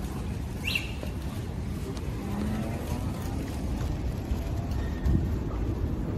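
Wind and road rumble on the microphone of a moving electric scooter, a steady low noise without engine sound. A short high chirp about a second in.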